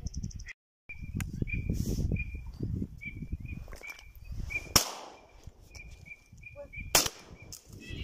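Two shotgun shots about two seconds apart, the first louder with a short echo, over low rustling of reeds and handling. A bird chirps again and again in the background.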